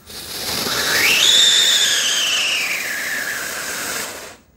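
Damo Fireworks 'Angry Birds' whistling ground cracker going off: a hissing spray of sparks with a loud whistle that rises quickly in pitch in its first half-second, then slowly falls. The whistle and hiss stop abruptly after about four seconds.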